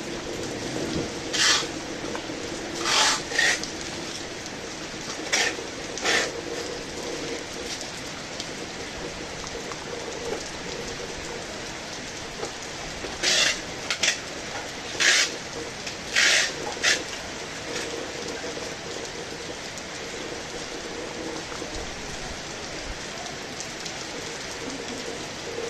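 Heavy rain falling steadily. About ten short, sharper splashes or taps stand out over it, in two clusters near the start and in the middle.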